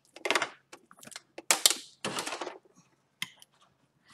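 Handling noise of plastic airway equipment: a few short rustles and clicks as the cuff-inflation syringe comes off the endotracheal tube and a bag-valve mask is picked up and fitted onto the tube's connector. The loudest rustle comes about one and a half seconds in.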